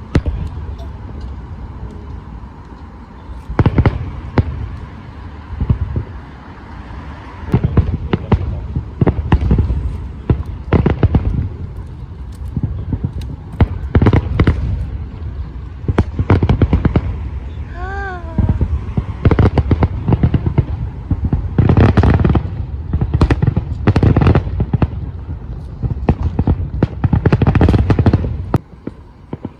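Fireworks display: repeated booming shell bursts, coming in clusters with rapid crackling between them. A short warbling whistle sounds about 18 seconds in.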